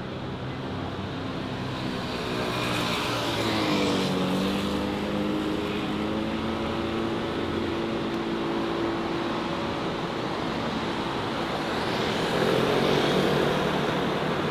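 Road traffic on a wet city street: vehicle engines and tyre hiss on rain-wet pavement. One engine's note dips in pitch about four seconds in and then holds steady, and another vehicle passes louder near the end.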